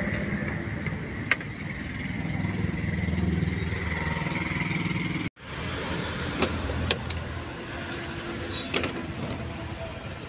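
Steady low rumble of an engine running nearby under a high steady hiss, with a few sharp metallic clicks in the second half as parts are fitted to a truck starter motor. The sound drops out for an instant about halfway through.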